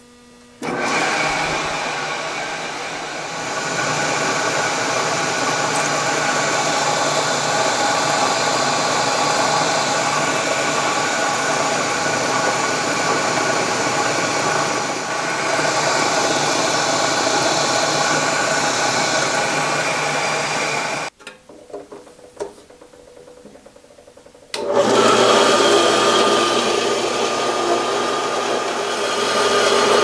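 Vertical milling machine running, its spindle turning a 3/16-inch end mill that drills a hole through a steel axle held in the vise. It stops about 21 seconds in, and after a pause with a few clicks another machine runs steadily for the last five seconds.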